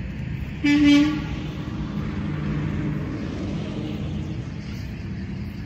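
Wind rumbling on the microphone, and about a second in a short, loud horn blast lasting about half a second.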